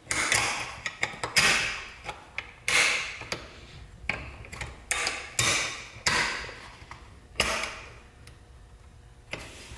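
Metal clutch shoes of a Stihl 015L chainsaw clicking and clinking as they are fitted by hand onto the clutch shoe holder, a run of sharp irregular clicks with brief ringing.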